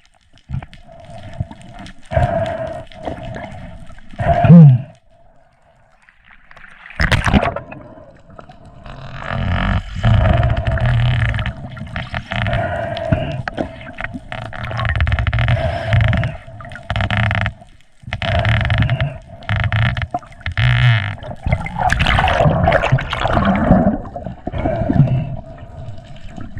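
Water sloshing and gurgling around a spearfisher's camera in uneven surges a second or two long, over a steady hum.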